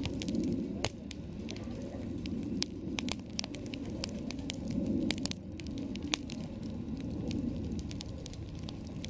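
Wood campfire crackling, with frequent irregular sharp pops over a low rushing sound that swells and fades.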